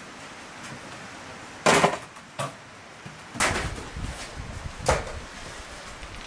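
Handling of fresh celery and a metal bowl: a sharp knock nearly two seconds in and another near five seconds, with rustling of the leafy stalks as they are lifted out between them.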